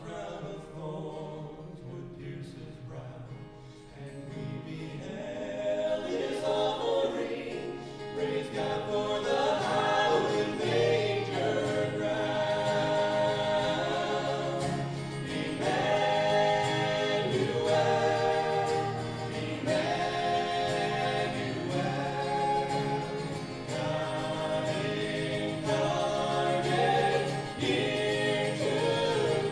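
A choir singing with instrumental accompaniment, starting softly and growing fuller about six seconds in.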